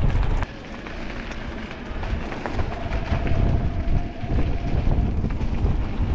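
Wind buffeting an action camera's microphone on a moving e-mountain bike, mixed with tyre and trail noise and small knocks. The low rumble eases sharply about half a second in and builds again near the end.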